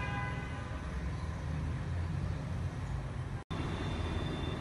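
Busy road traffic: engines of buses, cars and auto-rickshaws running with a steady low rumble, with a short vehicle horn at the start. The sound cuts out completely for a moment about three and a half seconds in, then a thin high tone sounds over the traffic near the end.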